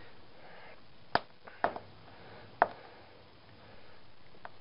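Three sharp knocks of a hammer striking a CRT television's deflection yoke: one about a second in, another half a second later, and a third about a second after that.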